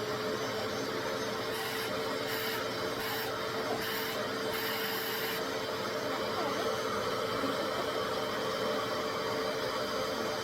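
RevAir reverse-air hair dryer running steadily, its suction motor making a loud, vacuum-like whir with a steady hum. A faint, very high whine flicks on and off about five times in the first half.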